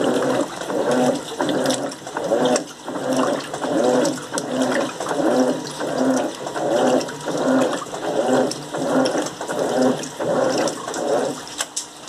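Electrolux Turbo Limpeza 8 kg top-loading washing machine agitating a load of clothes in water: rhythmic churning and swishing, nearly two strokes a second, that stops shortly before the end.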